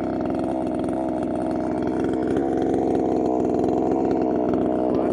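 Two-stroke chainsaw engine idling steadily, its pitch wavering only slightly.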